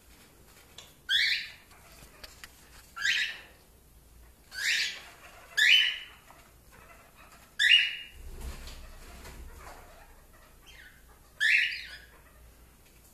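Cockatiel calling: about six loud, short calls, a second or two apart, with a longer pause near the end.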